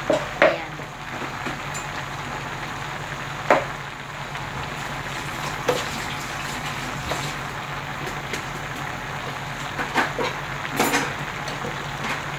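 A pot of chop suey cooking on the stove: a steady simmering hiss with a few light pops scattered through it, over a low steady hum.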